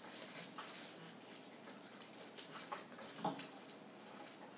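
Faint rustling and a few soft clicks of gloved hands handling spruce branches wrapped with thin wire.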